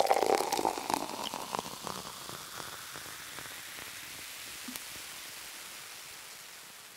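Logo-intro sound effect: a burst of crackling that settles into a hiss of static and fades out over several seconds.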